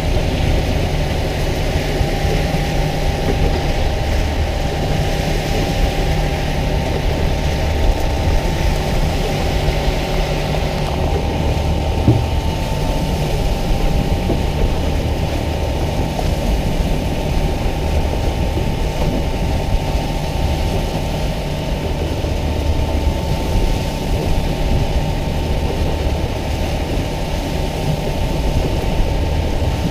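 Fishing boat's engine running steadily: a low hum with a faint steady whine above it, under a hiss of water that eases a little partway through.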